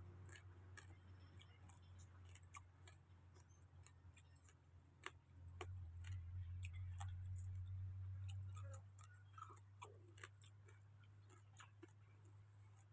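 Near silence: faint, irregular small clicks and ticks over a low steady hum, the hum swelling for a few seconds in the middle.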